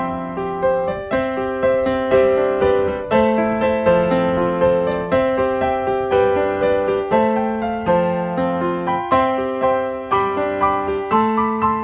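Background piano music: a steady, even run of struck notes, each fading after it is played.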